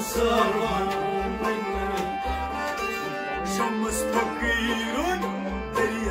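Kashmiri folk song: a man singing over an instrumental accompaniment of long held tones and a regular low drum beat.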